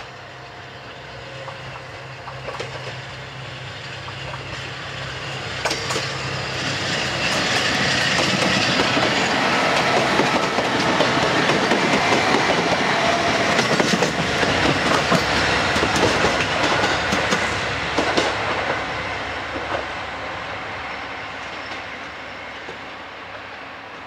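Tsugaru Railway diesel railcar pulling away from the station and passing close by. Its diesel engine and its wheels clacking over the rail joints grow louder to a peak in the middle, then fade as it moves off.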